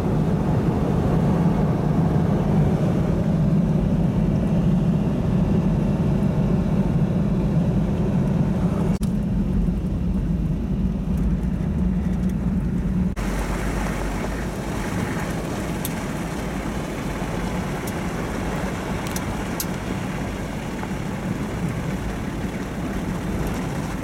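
Vehicle driving, heard from inside the cabin: a steady low engine and tyre drone. About halfway through it changes abruptly to a broader, higher road hiss with a few light clicks.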